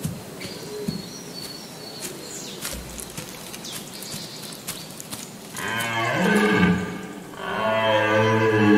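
Red deer stag roaring during the autumn rut: two long, deep bellows, the first starting about five and a half seconds in and the second, louder one following after a short breath. Before them there are only a few faint clicks.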